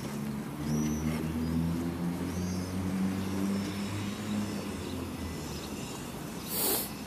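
A motor vehicle's engine running with a steady low hum that fades away about five seconds in, with a few small bird chirps over it. Near the end there is a short high hiss.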